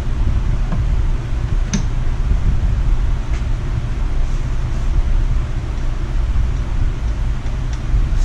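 Pioneer 650 chainsaw's two-stroke engine running steadily with the chain turning, so the bar oiler is pumping oil. There is a single sharp click about two seconds in.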